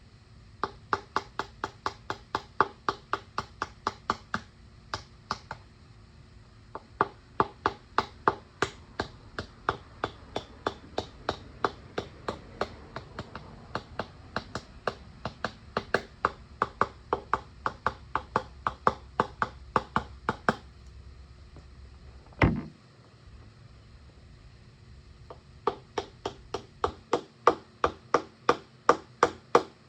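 Screwdriver handle tapping a utility knife blade, about four light taps a second in runs with short pauses, driving the blade under the edge of a glued plug disc. A single duller knock about two-thirds of the way through.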